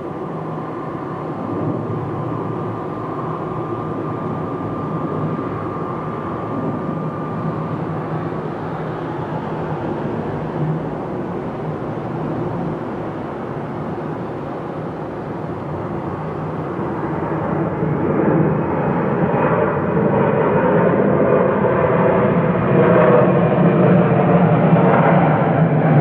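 Jet engines of a narrow-body Airbus airliner landing and rolling out: a steady jet rumble with a thin whine over it for the first several seconds. The engine noise grows louder and harsher over the last eight or so seconds as the jet rolls down the runway.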